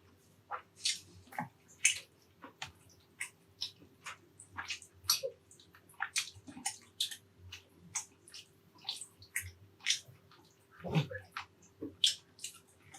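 Close-up wet mouth sounds of someone eating beef caldereta: chewing and lip smacks coming as irregular sharp clicks, several a second, with a fuller gulp-like sound about eleven seconds in.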